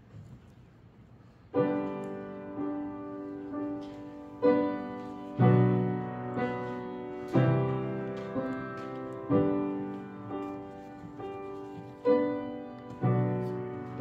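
Piano playing a slow hymn introduction in sustained chords, starting about a second and a half in, each chord struck and left to ring.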